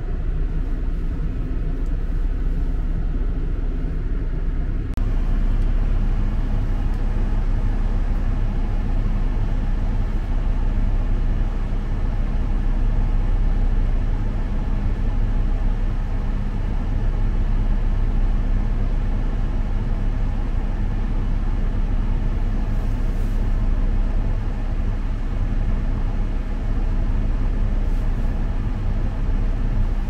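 Steady car-interior noise: the engine running with air blowing from the dashboard vents. About five seconds in, the sound steps up abruptly and becomes fuller, with a steady hum.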